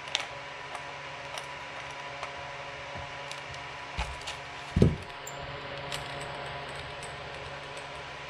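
Light metallic clicks and handling noises as the low-pressure hose fitting is unscrewed from a scuba regulator second stage, with a louder dull knock just before halfway, over a steady background hum.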